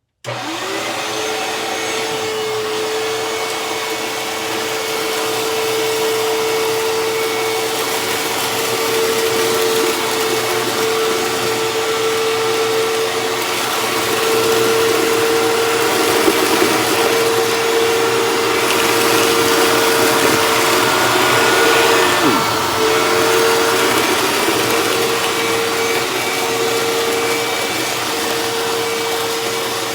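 Hoover Tempo bagless upright vacuum cleaner switched on, its motor spinning up at once and then running with a steady high hum as it makes a pass over scattered confetti. The hum dips briefly in pitch once, about two-thirds of the way through.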